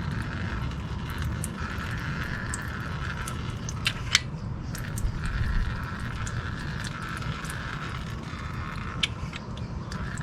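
Brake caliper piston being pushed back with a piston compressor tool while the bleeder screw is open, giving a few sharp metallic clicks over a steady background hum.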